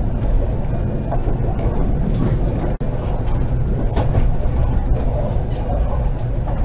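Konstal 105Na tram running: a steady low rumble of the car and its wheels on the rails, with a momentary dropout a little under three seconds in.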